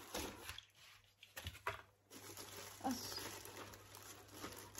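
Faint, irregular rustling and crinkling of plastic wrap and cardboard packaging being handled, with a few soft knocks.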